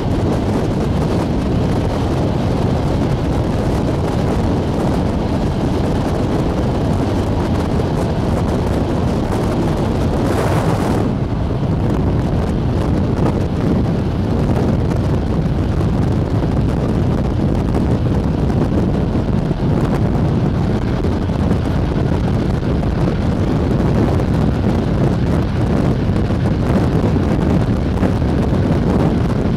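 Steady rush of wind on the microphone held out of a moving passenger train's window, over the low running rumble of the carriages on the rails. A brief louder hiss about a third of the way in.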